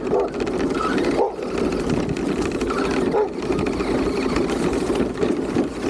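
Radio-controlled car's electric motor and drivetrain whirring steadily at close range as the car drives over rough dirt.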